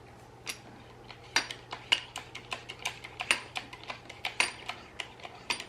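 Quick run of sharp metallic clicks and clinks from a Temco TH0005 hydraulic crimper being worked by hand. The clicks start about a second in and come irregularly, several a second.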